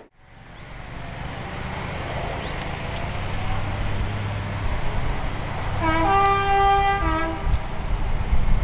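Diesel locomotive engine running with a low rumble that grows louder. About six seconds in, its two-tone horn sounds: a short low note, a longer higher note, then the low note again.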